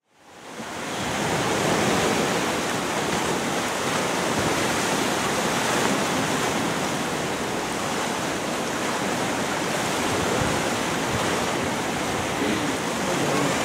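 Ocean surf surging against rocky sea cliffs, a steady rush of waves that fades in over the first second.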